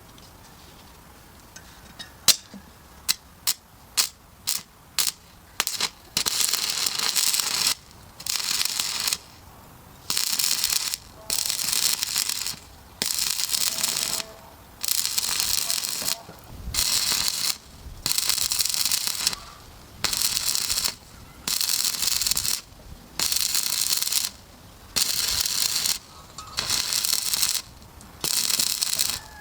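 Electric welding arc crackling and hissing. First come several short sharp strikes, then repeated bursts of about a second and a half, broken off by short pauses.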